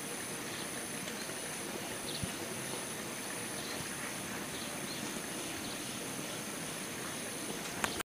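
Rural field ambience: insects calling in a steady, high-pitched pulsing drone over a low background hiss.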